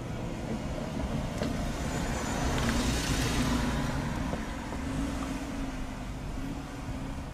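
A road vehicle passing by, swelling to its loudest about three seconds in and then fading.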